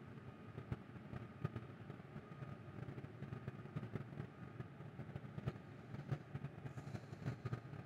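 Faint outdoor ambience: a low, uneven rumble with scattered faint clicks.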